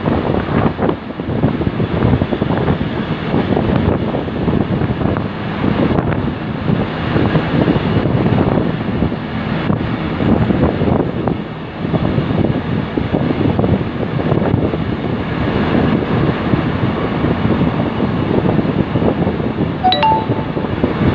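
Steady rumble of a rail maintenance vehicle riding along the track, with wind buffeting the microphone. A brief high beeping tone sounds near the end.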